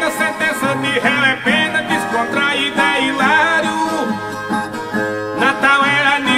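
Ten-string Brazilian violas playing an instrumental interlude of quick plucked runs and chords, the repente accompaniment between sung stanzas.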